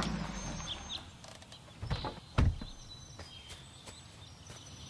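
Sound effects from an animated soundtrack. A low car hum fades out within the first second. A few faint bird chirps come next, then two dull thumps about half a second apart around two seconds in.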